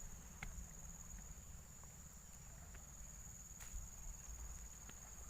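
Insects droning in a steady high-pitched tone, with a few faint clicks.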